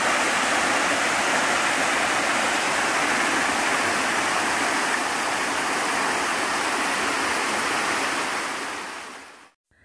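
Steady rush of water from a mountain stream cascading over a waterfall, fading out near the end.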